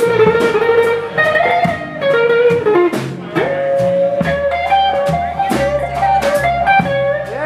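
Live blues band playing: an electric guitar holds long notes that bend and slide in pitch, over upright bass and drums with steady hits.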